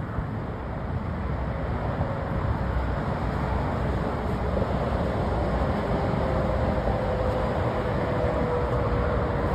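Passing road traffic: tyre and engine noise of vehicles driving by, growing a little louder over the first couple of seconds, with a faint steady whine in the second half.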